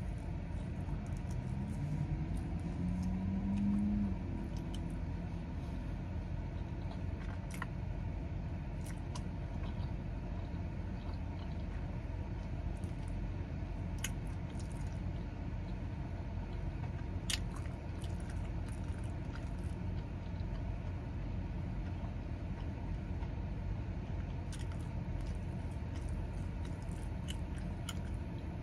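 A person chewing and biting into a churro egg wrap, with scattered small crunchy clicks, over the steady low rumble inside a car. A short low hum comes about two seconds in.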